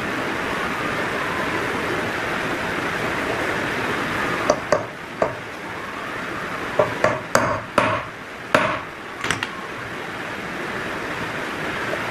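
Claw hammer striking a stainless steel airgun slug mold on a wooden board: about ten sharp metallic taps, some in quick pairs, clustered in the middle few seconds, pressing soft lead into a 14-grain slug. A steady hiss runs underneath.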